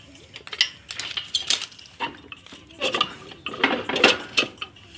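Screwdrivers clinking, clanking and scraping against the metal parts of a dismantled Jawa 634 motorcycle engine as they are prised apart, a run of sharp irregular metallic knocks.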